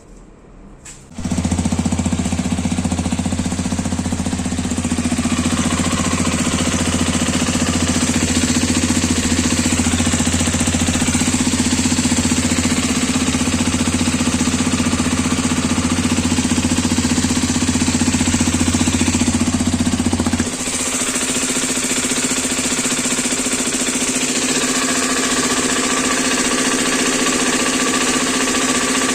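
Hero Xpulse 210 single-cylinder engine starting about a second in and idling with a hard, rattling clatter, which the buyer takes for engine knocking. About two-thirds of the way through, its deep low tone drops away and the running sound changes.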